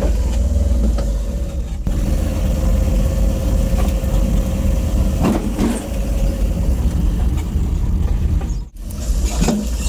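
Engine of a small goods tempo running while driving over a rough dirt road, heard from inside the cab: a heavy low rumble with a steady whine over it and a few knocks from the road. The sound cuts out for an instant near the end.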